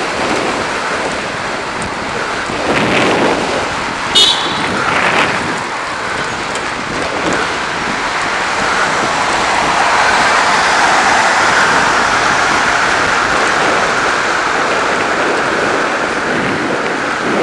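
Steady rush of wind and road noise while riding a bicycle along a busy main road, with traffic swelling past, most strongly in the second half. A brief high-pitched ring about four seconds in.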